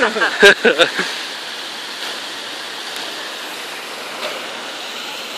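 A woman's voice for about the first second, then a steady hiss of background noise.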